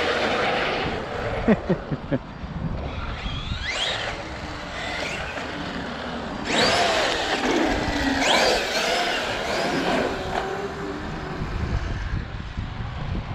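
Castle 1717 1650kv sensored brushless motor in an RC monster truck whining up in pitch several times as the truck accelerates, over tyre and drivetrain noise. A few sharp knocks come about a second and a half in.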